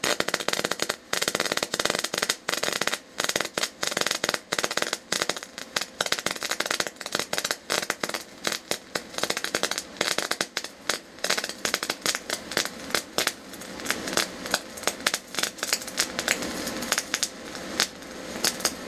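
Eastwood MIG 250 welding arc running a spray-transfer fill pass at about 30 volts and 440 inches a minute of wire: a dense, rapid crackle of pops over a steady hiss. In the last few seconds the pops thin out into a steadier hiss.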